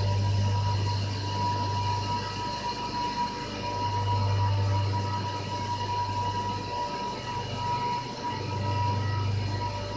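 Steam turbine-generator sets running in a power-station turbine hall: a steady rushing machine noise with a deep hum that swells and fades about three times, and a thin high whine.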